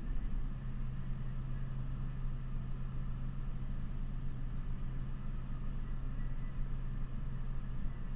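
Steady low hum of a walk-in dairy cooler's refrigeration unit, one strong low tone held without change over a faint even hiss.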